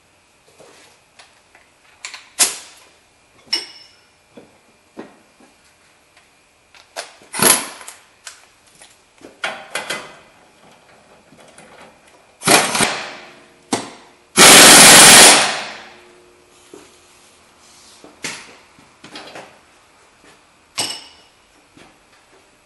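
Hand tools clicking and knocking on the metal of a car's upper ball joint as its stud nut is tightened. Two louder bursts come about 12 and 14 seconds in; the second lasts about a second and is the loudest sound.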